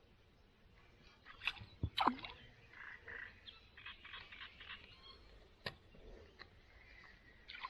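Faint clicks and rattles of spinning tackle being handled, with two sharp clicks about one and a half and two seconds in and a short falling squeak, then scattered light ticks.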